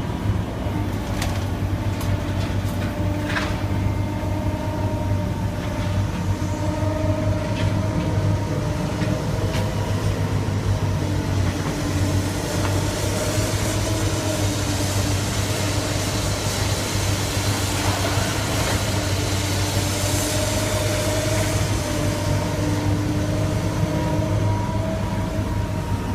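Heavy machinery running steadily: a low engine hum with a faint whine over it, and a few sharp clicks in the first seconds.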